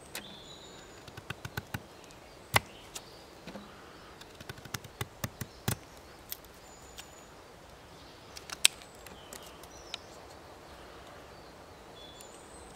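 Fixed-blade knife carving a notch into a fresh branch: irregular clicks and cracks as wood chips split off under the blade, with a few sharper snaps.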